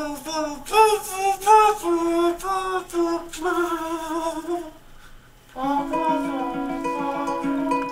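A man humming a wavering, mouth-organ-like tune through his cupped hands in place of a harmonica. From about five and a half seconds in, plucked guitar chords ring out.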